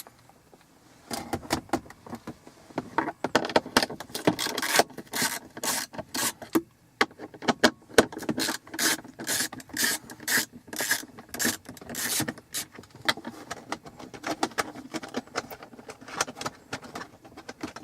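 Socket ratchet clicking in quick, irregular runs of sharp ticks as two 7 mm screws are backed out of the plastic console trim. The clicking starts about a second in.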